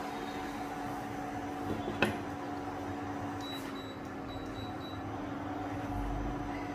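Steady mechanical hum of a kitchen appliance, with one short knock about two seconds in.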